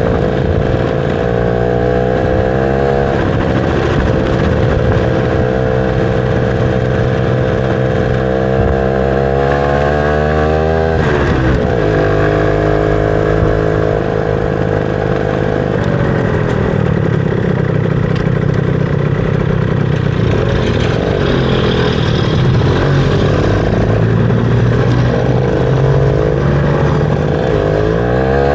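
Motorcycle engine running under way, its pitch climbing steadily and then dropping sharply about eleven seconds in, running steadier for a while, and rising and falling again near the end.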